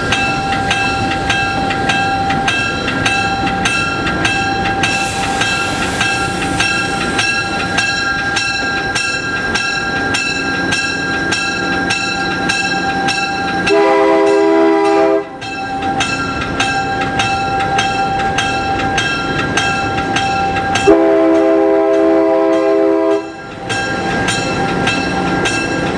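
Diesel locomotive heard from its cab: the engine bell rings with steady, rapid strikes while the locomotive moves. The multi-chime air horn sounds twice, a short blast a little past halfway and a longer one about three quarters of the way in; the horn blasts are the loudest sounds.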